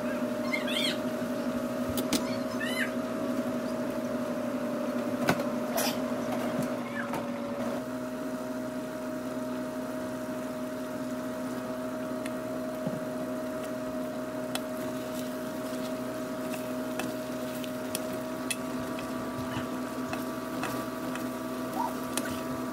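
A metal spatula stirring and scraping chicken in a simmering pan, with scattered clinks against the pan, most of them in the first several seconds. A steady hum runs underneath.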